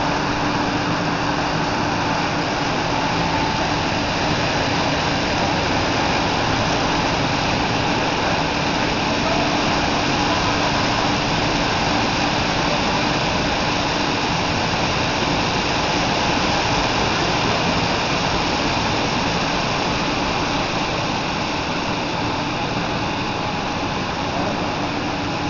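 Brush roller washing machine running, its spray nozzles jetting water onto the turning brushes: a steady hiss of spraying water over a constant low machine hum, a little quieter near the end.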